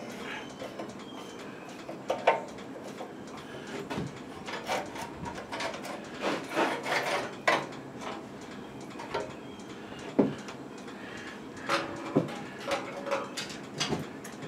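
Intermittent clinks, clicks and knocks of hand tools and metal parts being handled during tiller repair work, irregular and with no steady rhythm.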